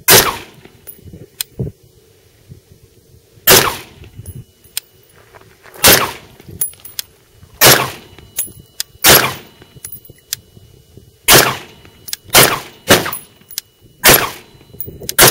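AR-15-style 5.56 mm semi-automatic rifle firing about ten single shots, spaced from half a second to about two and a half seconds apart, each followed by a short echo. Fainter clicks fall between some of the shots.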